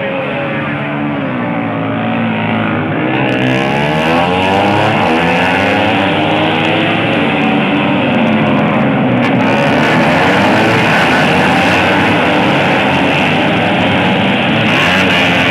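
Several tuned race motorcycles running together on a race track, their engine notes rising and falling as they accelerate, shift and pass.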